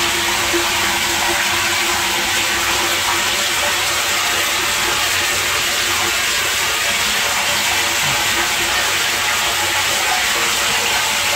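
Steady rush of mains water pouring from an inlet pipe into a closed water tank, heard from inside the tank as it fills.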